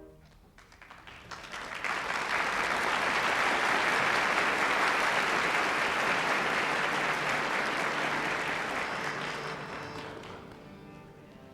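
Concert-hall audience applauding as the orchestra's final chord ends; the clapping builds over the first couple of seconds, holds steady, then dies away near the end.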